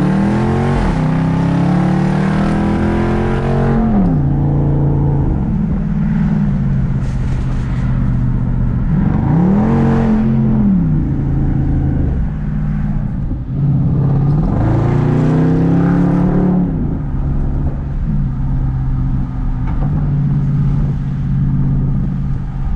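Straight-piped Jeep SRT V8 exhaust while driving. The engine note climbs and drops back three times: at the start, about ten seconds in and about fifteen seconds in. Between the climbs it settles into a steady low cruising drone.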